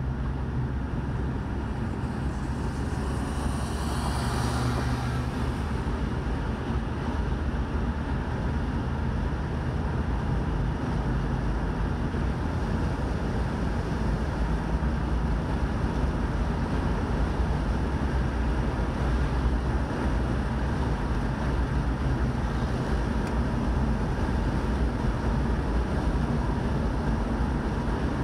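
Steady road and engine noise heard inside the cabin of a car driving at highway speed. About four seconds in, a brief louder hiss rises above it.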